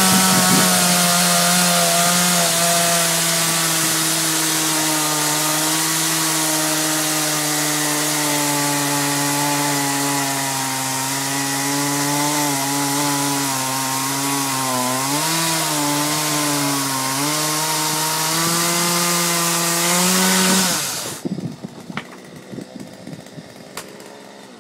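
A McCulloch 335 two-stroke chainsaw running at full throttle as it cuts through a log. Its pitch sags steadily under the load and wavers partway through, then the revs climb back just before the saw stops about 21 seconds in, leaving a few faint knocks.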